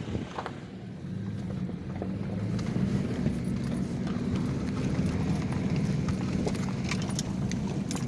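Car driving slowly up a rough gravel track, heard from inside the cabin: a steady low engine and road rumble that grows about a second in, with scattered clicks and knocks from stones under the tyres.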